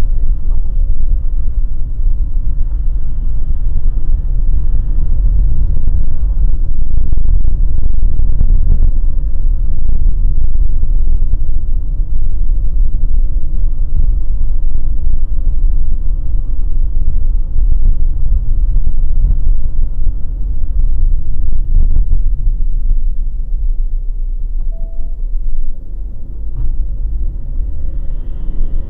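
A car being driven on a narrow road, heard from inside the cabin: a loud, steady low rumble of engine and tyres that eases off somewhat in the last few seconds.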